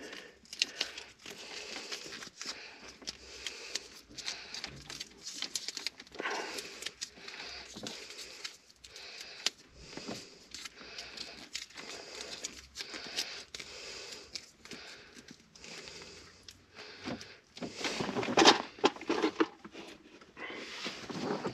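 Electrical insulating tape being peeled off the roll and wrapped around a crimped wire connection: a long run of small crackles and tearing noises, with louder patches about six seconds in and again near the end.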